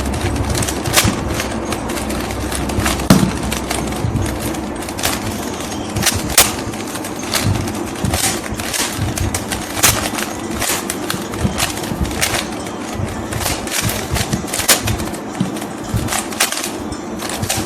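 Plastic Rubik's cube being turned quickly by hand: a run of sharp, irregular clicks and clacks, several a second, as the layers snap round during a beginner's-method solve.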